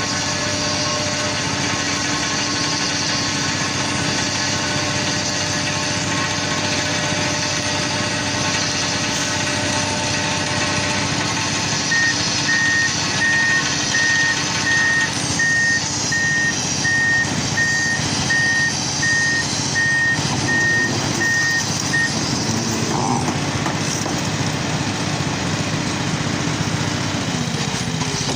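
Excavator's diesel engine running steadily under work. Its warning alarm beeps at one pitch, about one and a half beeps a second, for roughly ten seconds in the middle.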